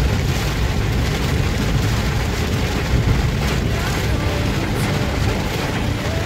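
Heavy rain falling on a moving car's windshield and body, over a steady low rumble of tyres on the wet road and the engine, heard from inside the cabin.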